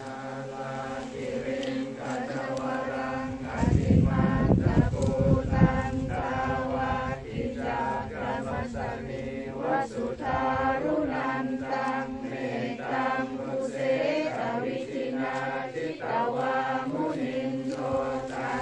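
Theravada Buddhist monks chanting Pali verses in unison, a steady group chant of men's voices. A low rumble comes in about three and a half seconds in and lasts for about two seconds.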